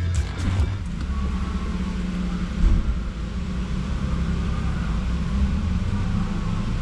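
Ford Focus RS Mk3's turbocharged 2.3-litre four-cylinder engine running steadily at idle, heard from inside the cabin as a low rumble, with a few short clicks in the first second.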